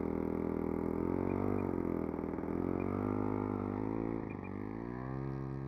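Engine of a radio-controlled Hurricane model plane running fast, its note dipping twice and then climbing and steadying, a little quieter after about four seconds.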